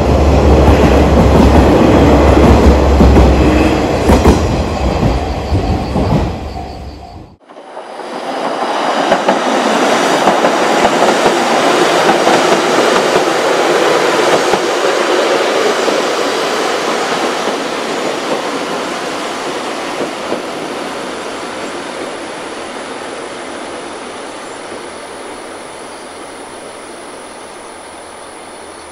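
KiHa 40-series diesel railcar passing close, a loud rumble of engine and wheels on rail that cuts off abruptly about seven seconds in. Then a diesel railcar running past farther off, its sound swelling and slowly fading away.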